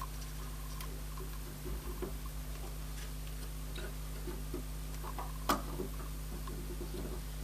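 Light clicks and taps of hands handling a small circuit board against a helping-hands crocodile clip: a run of small ticks about two seconds in and one sharper click about five and a half seconds in, over a steady low hum.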